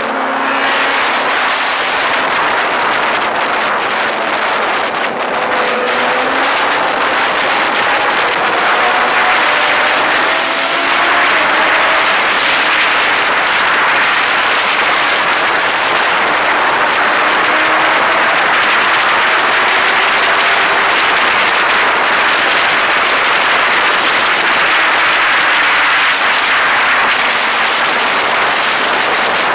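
A motor vehicle travelling at speed: a loud, steady rush of wind and road noise, with a faint engine tone rising and falling underneath.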